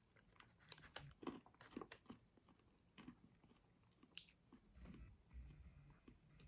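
A person biting and chewing a crunchy milk chocolate bar with crisped rice: a run of faint, irregular crunches, thinning out to a few soft mouth sounds near the end.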